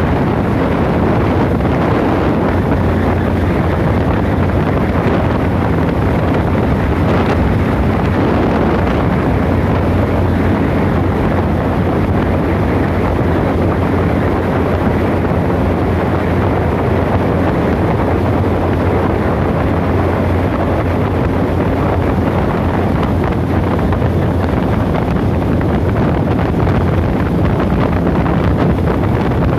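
Boat motor of a small tunnel-hull boat running steadily under way, a constant low hum, with wind buffeting the microphone.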